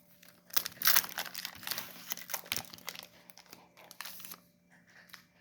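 Foil wrapper of a Pokémon TCG booster pack crinkling and tearing as it is opened, loudest about a second in and dying down after about four seconds.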